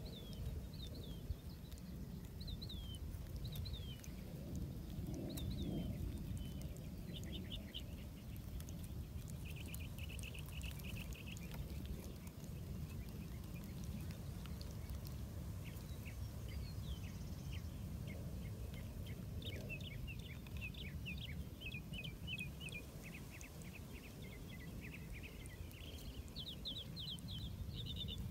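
Northern mockingbird singing: a run of changing phrases of chirps, slurred whistles and quick repeated notes, over a steady low rumble.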